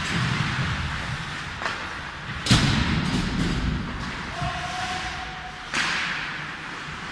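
Ice-hockey play against the rink boards: a loud bang echoing through the rink about two and a half seconds in, with a smaller knock before it and another near the end.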